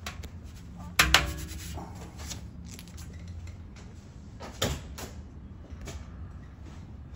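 Handling knocks in a workshop: a sharp knock about a second in, a weaker one a few seconds later and some faint clicks, over a low steady hum. The engine is not yet running.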